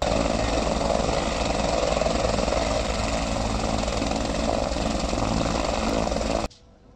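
An engine running steadily under a loud rushing hiss, cutting off suddenly near the end.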